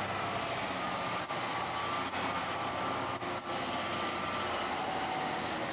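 Steady running noise of a vehicle, with faint steady tones over it.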